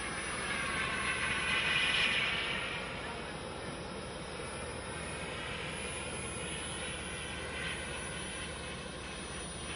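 Turbine engine of a radio-controlled model jet in flight, a steady rushing jet noise that swells as the jet passes about two seconds in, then settles to a steady level.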